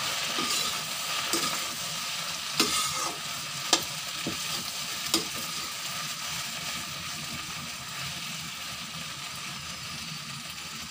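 Chopped okra frying in mustard oil in a kadhai, sizzling steadily while a metal spatula stirs it, with a few sharp clinks of the spatula against the pan in the first half.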